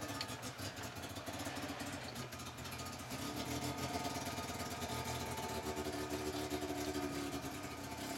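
Off-road rock-crawler's engine running at low revs, picking up slightly in pitch and loudness about three seconds in and again near six seconds as it is throttled over the rocks.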